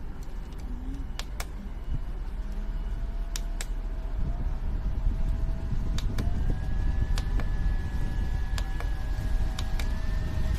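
Small USB-powered dual-head fan running, its airflow hitting the microphone as a low rumble that grows louder over the first few seconds. A faint motor whine joins a couple of seconds in, and a few light clicks sound here and there.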